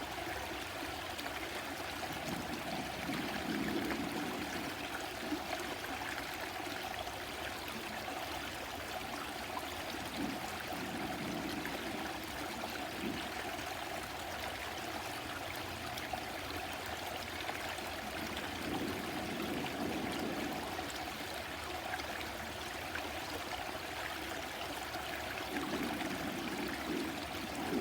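A stream running steadily, a continuous rushing and trickling of water.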